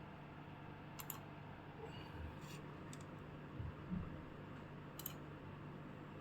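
Faint, scattered light clicks and soft knocks from small parts and tools being handled on a repair bench. The clicks are sharp and come singly or in quick pairs, and there are a couple of duller knocks near the middle. A steady low hum sits underneath.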